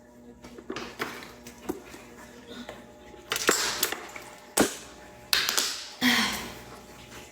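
A woman hiccuping: several sudden, sharp hics about a second apart in the second half, with light clicks before them.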